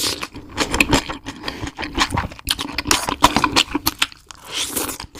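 Close-miked chewing and crunching: a dense run of irregular crackly clicks, with a short breathy hiss about four and a half seconds in.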